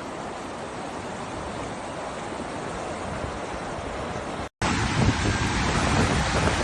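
Heavy rainstorm: a steady hiss of rain, then, after an abrupt cut about four and a half seconds in, a louder hiss with wind buffeting the microphone.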